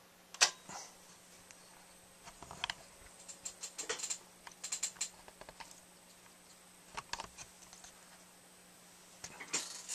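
Scattered light clicks and taps of handling: a sharper click about half a second in, then small clusters of soft taps, over a faint steady low hum.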